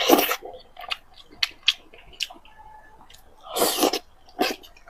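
Close-miked eating sounds: biting into and chewing a piece of red-braised pork belly, with wet mouth clicks and smacks. There is a louder burst right at the start and another about three and a half seconds in.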